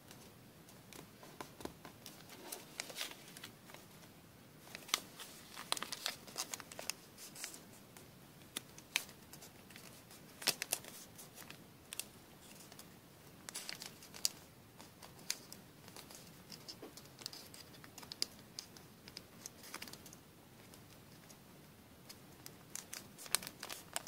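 Sheets of origami paper rustling and crinkling as they are folded and creased by hand, with irregular small crackles and taps.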